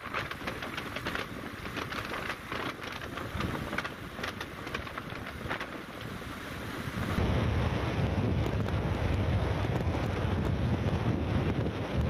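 Wind rushing and buffeting over the microphone of a moving motorbike-mounted camera, with many small crackles in the first half; about seven seconds in it turns louder and deeper.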